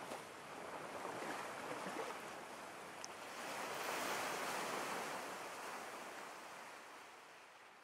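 Ocean waves: a rushing wash of surf that swells to a peak about four seconds in and then slowly fades away.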